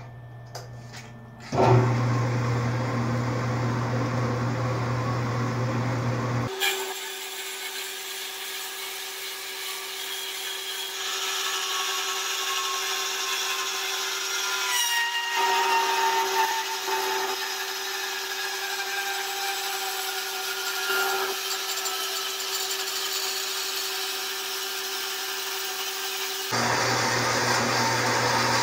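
Horizontal metal-cutting bandsaw starting up about a second and a half in, then running steadily as its blade cuts down through steel angle. The blade hisses through the cut, with a faint whine that slowly falls in pitch partway through.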